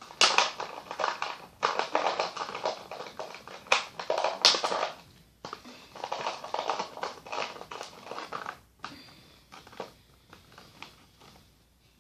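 Rustling, crinkling and clicking of plastic as small Shopkins toy figures are handled and sorted. It comes in busy bursts for the first five seconds, then thins to fainter scattered taps and clicks.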